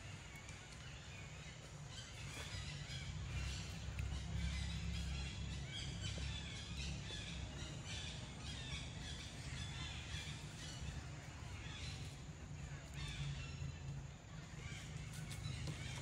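Birds calling and chirping in the background, many short calls overlapping, some of them cawing, over a steady low rumble.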